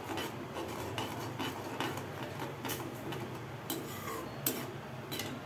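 A metal slotted spoon stirring a thin spice-and-water masala in an iron kadai, giving irregular light clinks and scrapes of metal on metal, with a few sharper clinks past the middle.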